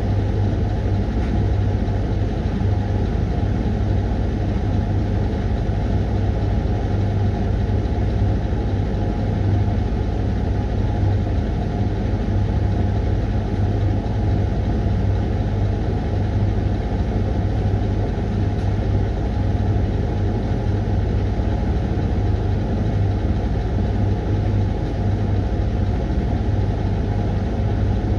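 Hoover washing machine running its 20-minute Refresh cycle: a steady mechanical hum with a strong low drone.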